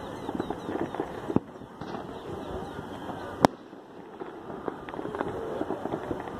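Fourth of July fireworks and firecrackers popping and crackling in quick scattered pops, with one sharp, loud bang about three and a half seconds in.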